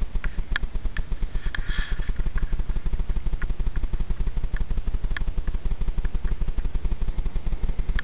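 An engine running steadily with a fast, even low putter, with a few faint clicks over it.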